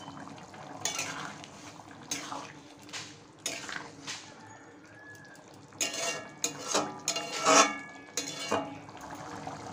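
Spatula scraping and knocking against a metal kadai while stirring a simmering mushroom-and-potato curry. There are scattered scrapes at first, then a busier run of stirring near the end.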